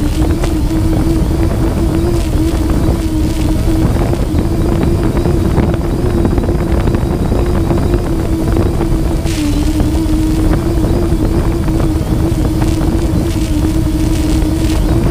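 Electric motors and propellers of a camera drone humming at a steady pitch in flight, with heavy wind rumble on the microphone; the pitch dips briefly about nine seconds in, then recovers.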